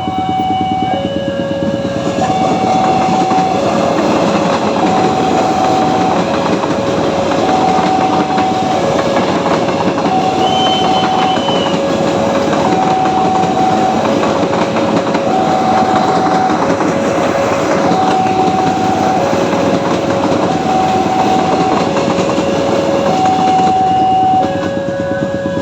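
An electric train passes, its wheels clattering over the rails from about two seconds in until near the end. Under it a level-crossing warning alarm keeps sounding two alternating tones, high and low, each about two-thirds of a second long.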